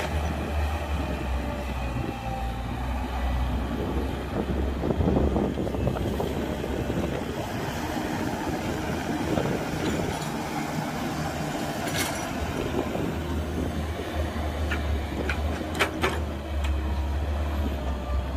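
Excavator's diesel engine running under load while it digs and loads dirt, a steady low drone that eases in the middle and builds again. Sharp metal clanks come about two-thirds of the way through and again near the end.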